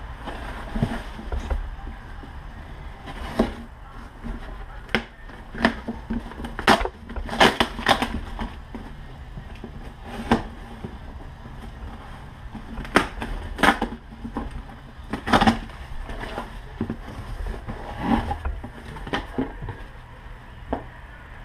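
A cardboard shipping box being torn open by hand and its flaps and packing pulled back: a run of irregular sharp rips, crinkles and knocks, busiest in the middle.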